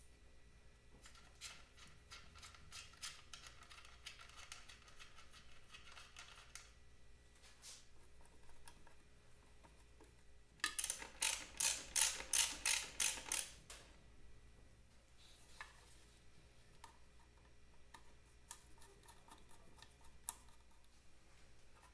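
Workshop hand work on a part: a run of small quick mechanical clicks, then a louder burst of about ten quick, evenly spaced scraping strokes about halfway through, then a few light clicks and taps.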